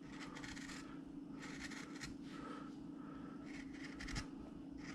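Handheld V tool cutting into a wooden carving in a few short, soft scraping strokes, outlining the fur band on the hat; a light knock about four seconds in.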